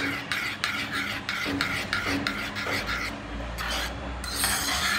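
Metal spoon stirring a thick chia seed and yogurt pudding in a bowl, scraping against the bowl in quick rhythmic strokes, about three a second, with a few longer, louder strokes near the end.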